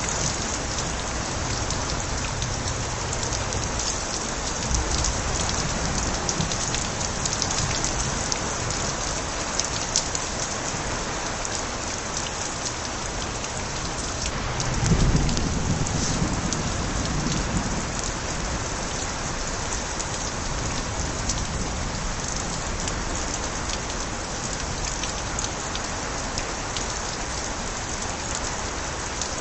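Steady rain pattering, with water spilling from overflowing gutters. A brief low rumble of light thunder swells about halfway through.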